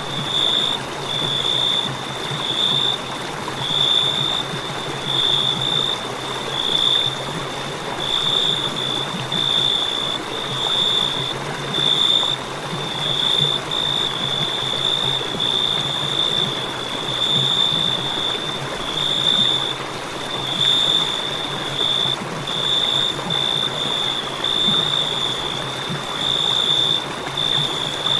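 Crickets chirping: a high, pulsing trill that comes in short bursts one after another, over a steady hiss.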